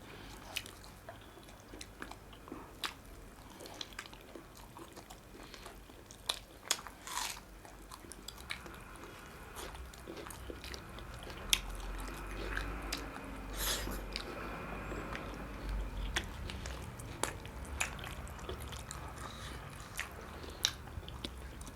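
A person chewing and biting food close to the microphone, with scattered small clicks and mouth sounds.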